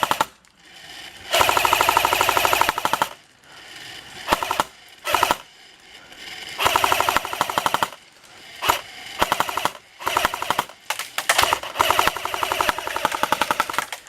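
Airsoft electric guns firing fully automatic bursts, a fast rattle of shots. One long burst comes about a second in, then a couple of short ones, and from about the middle onward bursts follow one another almost continuously.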